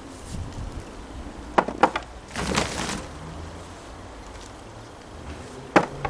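Hands rummaging through potatoes and compost in a fabric grow sack: two sharp knocks about a second and a half in, a short rustling scrape just after, and one more knock near the end.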